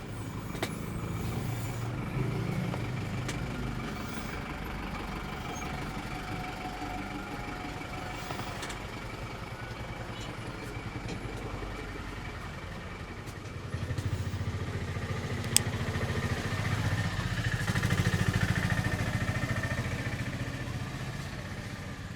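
Street traffic: a motor vehicle's low engine rumble that swells about two-thirds of the way through and fades near the end, as if a vehicle passes close by. A single sharp click comes as the rumble is rising.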